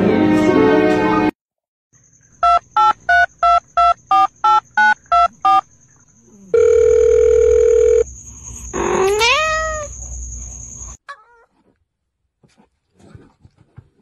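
Music cuts off about a second in, then telephone keypad tones: about ten quick beeps in a row and a steady phone tone. A short rising cat meow follows.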